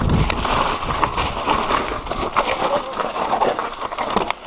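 Mountain bike rattling over a rough dirt trail on a descent: tyres on loose dirt with many quick knocks and clatters from the chain and frame, and a low buffet at the start.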